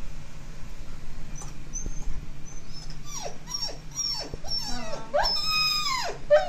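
A husky-type dog whining: faint high squeaks, then several short falling whines, then one longer whine that drops at the end, the way a dog frightened by thunder cries.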